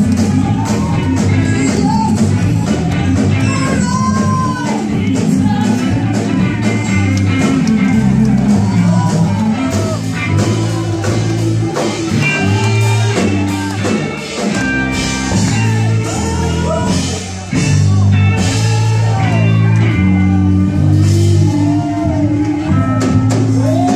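Live praise-break band playing loud up-tempo gospel: electric guitar, drum kit and a bass line stepping between notes, with a singer and worshippers' voices singing and shouting along.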